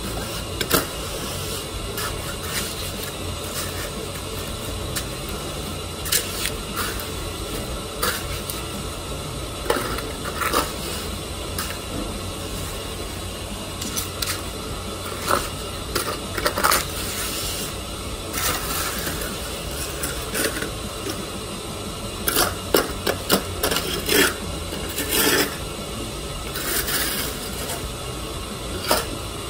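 Hand trowel scraping and smoothing wet concrete patched into a floor slab, in short, irregular strokes, with a tighter run of sharper scrapes about three-quarters of the way through.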